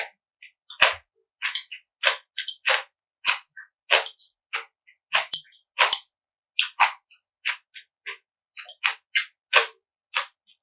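Close-miked chewing of crunchy food: a steady run of short, crisp crunches, about two to three a second.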